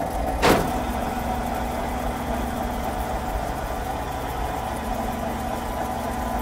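Truck engine idling with a steady low rumble and a held hum, added as the tow truck's sound. A sharp clank comes about half a second in.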